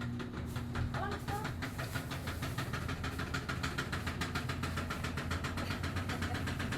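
Washing machine on its spin cycle: a steady low hum with a fast, even rhythm of knocks as the drum spins the clothes.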